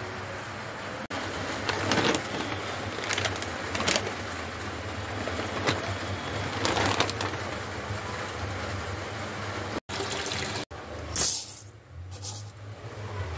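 Kitchen handling sounds: rustling with short scrapes and clinks, over a low steady hum, cut off abruptly twice near the end.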